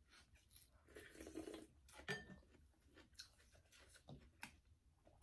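Quiet, scattered clicks and clinks of eating utensils against dishes during a meal, with a faint murmur about a second in.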